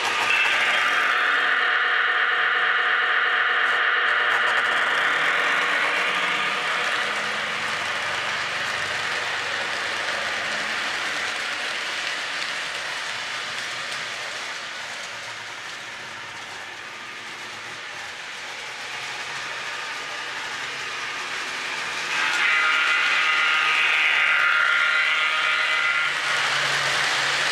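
Lionel Chessie EMD SD9 O-gauge model diesel and its freight cars running around a track loop: a steady rolling clatter of wheels on the track that swells as the train comes past and fades in the middle as it goes round the far side. A held chord of high steady tones sounds as the locomotive passes, at the start and again about 22 seconds in.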